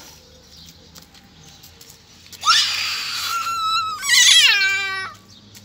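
Two loud, high-pitched cries: the first held at one pitch for about a second, the second, a moment later, sliding down steeply in pitch.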